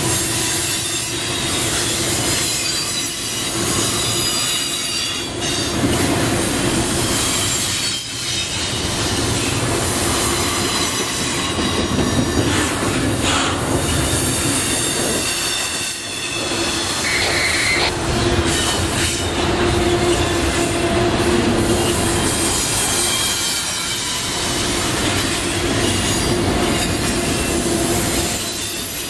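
Double-stack intermodal well cars of a freight train rolling past close by: steel wheels squealing against the rails in several steady high tones over the steady grinding clatter and rumble of the cars.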